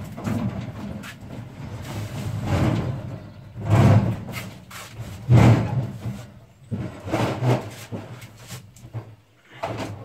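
A red metal toolbox being shoved and shifted into a corner: irregular scraping and bumping, with the two loudest knocks about a second and a half apart near the middle.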